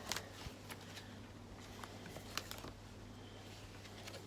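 Paper picture book being handled and its pages turned: a few soft, scattered clicks and rustles over a faint steady low hum.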